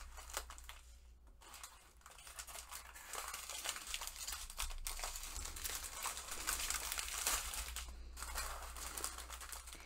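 Small clear plastic packets of diamond painting drills crinkling as they are handled and laid out, a soft irregular rustling that grows busier from about three seconds in.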